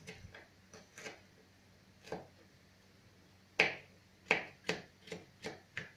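Small kitchen knife tapping on a plastic cutting board while mincing garlic: a few faint taps, then a run of louder, sharp taps about every half second in the second half.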